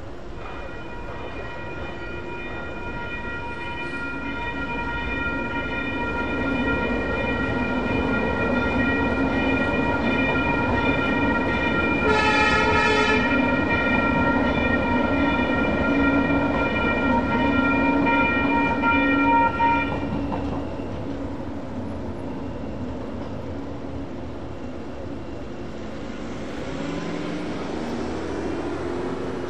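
Railroad crossing bells ringing steadily while a light rail train rolls through, its rumble building and then easing. The train sounds one short horn blast midway through. The bells stop about two-thirds of the way through.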